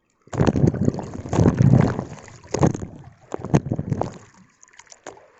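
Rough sea waves washing and splashing around a wading angler, with wind buffeting the microphone of a phone in a waterproof pouch. The sound is loud and uneven, with repeated sharp splashes, and eases off near the end.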